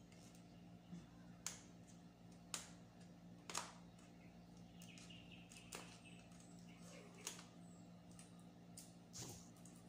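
Faint scratches and sharp clicks of fingernails picking at and peeling the seal sticker off a smartphone's cardboard box, about six clicks spread out over a low steady hum.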